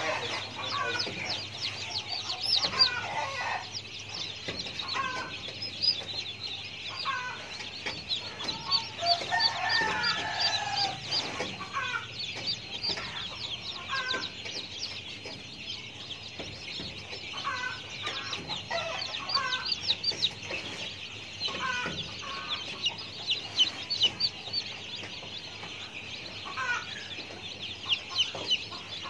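Bird calls: short calls repeated every second or two over a dense, steady high-pitched chirping, with one longer call about ten seconds in.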